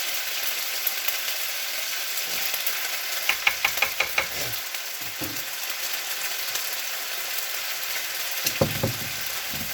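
Chicken and celery sizzling steadily in a frying pan during a stir-fry, with a quick run of about five clicks a little after three seconds in and a few soft knocks later.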